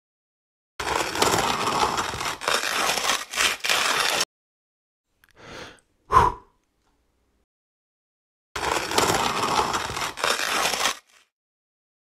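Hario Skerton Plus hand grinder crushing coffee beans between its burrs as the crank is turned: gritty crunching in two bursts, the first about three seconds long and the second about two. A short, sharp hit sounds between them, about six seconds in.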